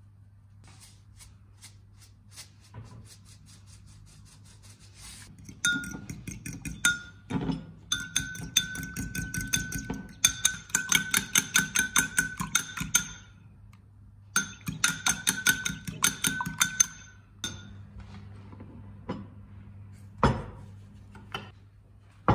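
Metal fork beating eggs in a glass cup, clinking rapidly against the glass with a bright ringing tone, in two runs separated by a short pause. A single louder knock comes near the end.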